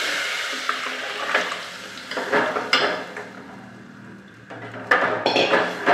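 Kadhi batter of buttermilk and gram flour poured into a pot of hot ghee tempering, sizzling as it hits and fading over the first second or so. Then a steel spoon clinks and scrapes against the metal pot and bowl as it is stirred, loudest about five seconds in.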